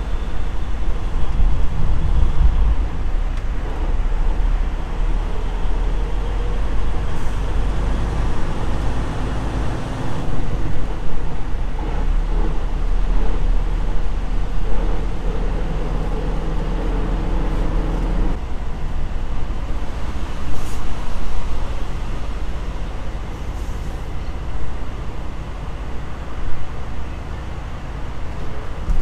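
Freightliner Cascadia semi truck heard from inside the cab: steady engine and road drone. Its pitched engine note fades out about eighteen seconds in, leaving a lower rumble.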